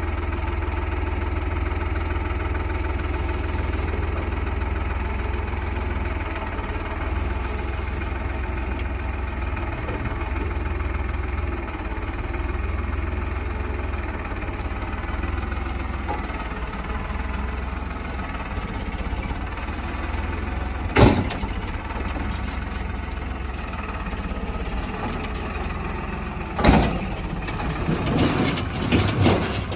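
Diesel engine of a JCB 3DX backhoe loader running steadily, with a sharp metallic knock about two-thirds of the way through and a burst of knocks and clatter near the end.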